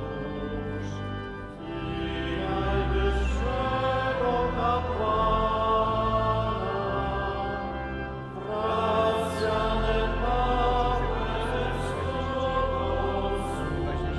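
Choir singing liturgical music in long sustained phrases over a steady low bass, with short breaks between phrases about a second and a half in and again about eight seconds in.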